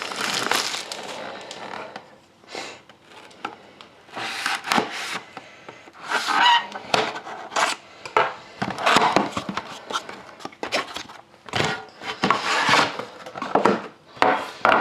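Irregular scraping, rubbing and rustling as a trading-card box and its packaging are handled and opened to get at the pack.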